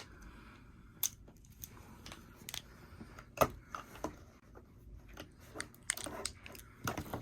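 Small plastic toy pieces and packaging being handled and opened: scattered irregular clicks and short rustles, the sharpest about three and a half seconds in.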